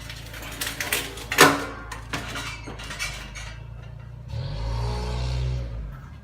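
Metal clanks and knocks, the loudest about a second and a half in, as plumbing parts and tools are handled. Then a steady low hum with a hiss for about a second and a half before it stops.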